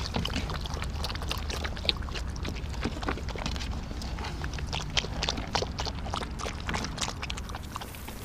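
Puppies' paws scrabbling and splashing at the edge of a shallow plastic wading pool: irregular small clicks and splashes over a steady low rumble.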